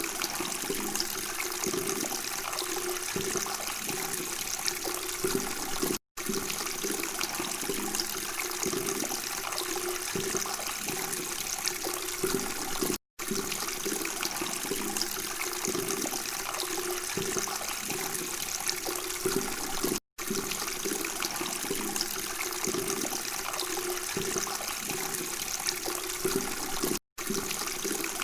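Steady babbling of running water, broken by a brief silent gap about every seven seconds, four times, where the recording loops.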